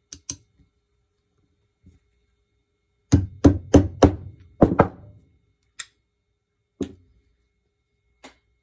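Sharp knocks on the Uzi bolt as the extractor is tapped farther down along its groove: about six quick knocks in two seconds, then three single knocks spaced out. A couple of light clicks come at the start.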